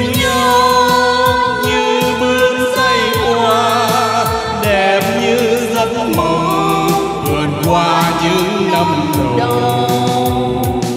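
Backing music of a slow Vietnamese love song duet during an instrumental interlude between sung verses: a wavering lead melody over a steady beat.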